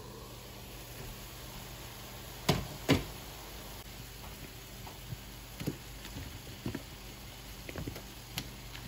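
Glass pan lid knocking twice, sharply, as it is lifted off and set down, then a scattering of lighter knocks as cubes of raw squash drop into a pan of simmering ground meat and tomato. A steady low hum runs underneath.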